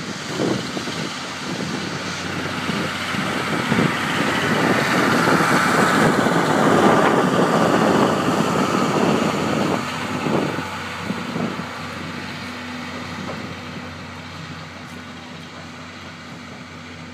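Steam-hauled passenger train behind the C57 180 rolling past, its noise building to a peak about halfway and then fading as the coaches pull away, with a few sharp knocks in the second half.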